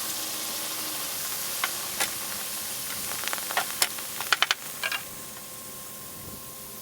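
Hot aluminium bronze sizzling, with a steady steam hiss and a scatter of sharp crackles and pops that thin out after about five seconds as the hiss eases.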